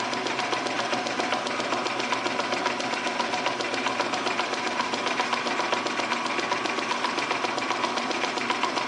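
Metal lathe running, turning the V-groove of a pulley blank, with a rapid, even ticking clatter.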